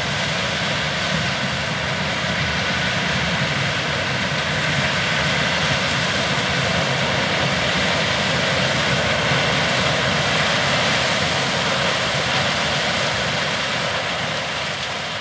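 Claas Lexion 7500 Terra-Trac combine harvesting corn with a 12-row chopping corn head: a steady engine and machinery drone under load. It grows slightly louder toward the middle and eases off near the end.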